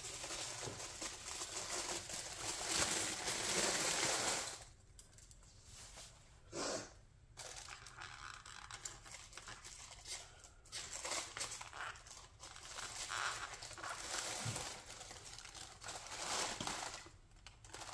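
Packaging crinkling and rustling as a diecast model crane's carrier frame is unwrapped and lifted from its box. The rustling is strongest for the first four seconds, then comes in shorter, quieter bouts.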